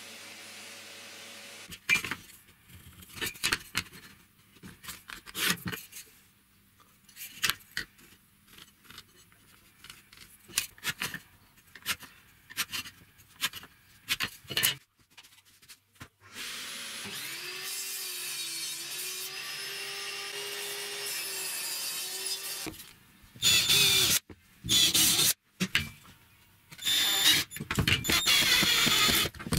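Plywood being handled and marked out, with scattered taps and clicks. Then a power tool runs steadily for about six seconds, and near the end a cordless drill/driver drives screws into plywood in short loud bursts.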